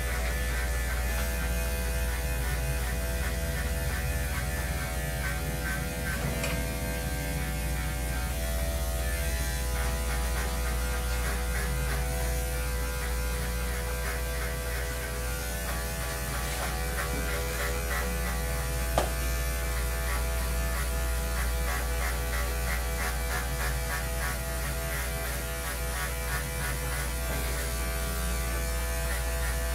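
Electric dog-grooming clippers running with a steady buzz as they shave a dog's coat. There is one sharp click about two-thirds of the way through.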